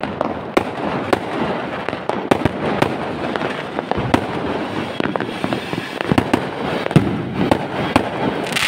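Fireworks going off: a continuous dense crackle broken by sharp bangs about twice a second.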